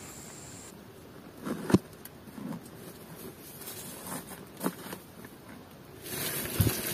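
Faint ambience inside a hand-dug mine tunnel, with a few scattered sharp knocks, the loudest nearly two seconds in. Near the end a hissy noise rises.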